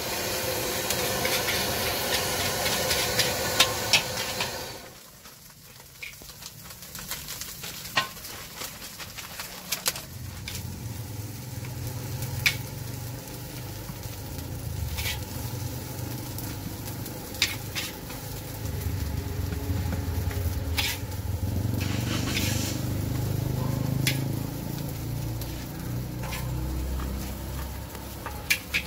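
Nasi goreng sizzling loudly in a large wok over a gas burner while a metal spatula stirs it. The sizzle dies down about five seconds in, and scattered sharp clinks of the spatula against the wok follow, over a low rumble.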